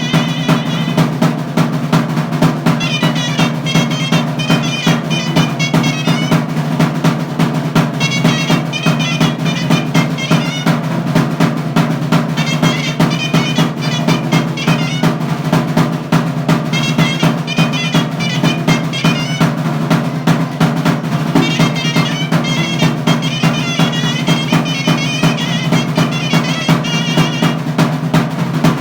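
Jalisco chirimía music: a shawm plays trilled, ornamented melody phrases with short breaks between them, over a continuous, rapid drum roll.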